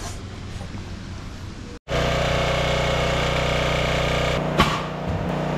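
Small 6.5 hp Harbor Freight gas engine running steadily with its belt-driven AC compressor, coming in loudly after an abrupt cut about two seconds in. A single sharp knock near the end.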